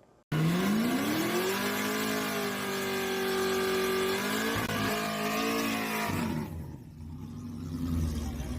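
A car engine revs up quickly and holds at high revs, then drops back to a low rumble about six seconds in.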